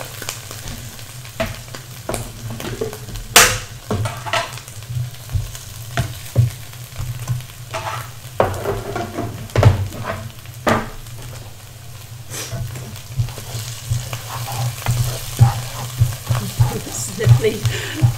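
Onion-and-chili sambal frying in oil in a wok, sizzling steadily as it is stirred, with the spatula scraping and knocking against the wok at irregular intervals.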